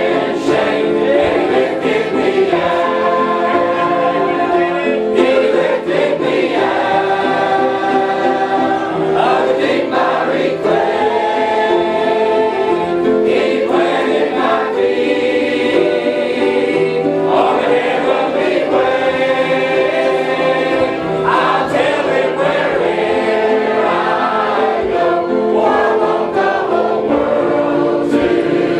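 Church congregation singing a hymn together, voices held on long notes.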